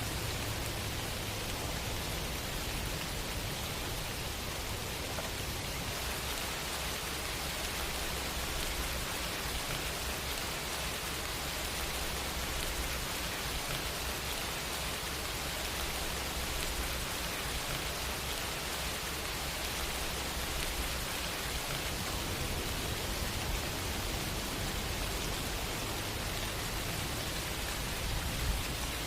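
Steady rain: an even, unbroken hiss of falling rain with no thunder, changing slightly in texture about six seconds in.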